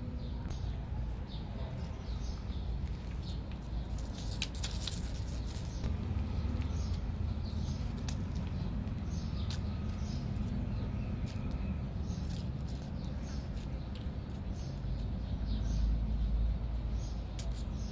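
Many short, high-pitched chirps or squeaks, repeated irregularly over a steady low rumble.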